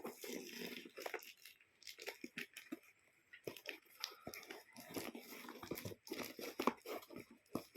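Plastic or paper packaging being handled, crinkled and torn open by hand: irregular rustling and crackling.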